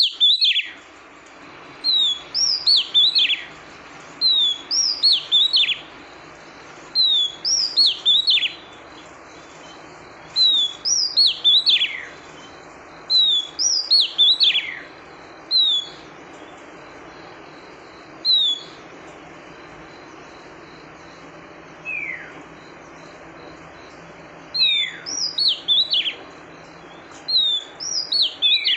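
Female oriental magpie-robin calling: short bursts of several sharp, downward-sliding whistled notes, repeated every couple of seconds, with a quieter stretch of only single notes past the middle. It is the female call used to stir up a male.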